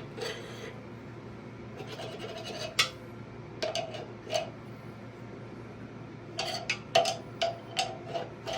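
Metal clinks and taps of a steel knockout bar against the lathe's headstock locking pin as it is turned tight by hand. There are a few scattered clinks, then a quicker run of about six near the end, each with a short ring.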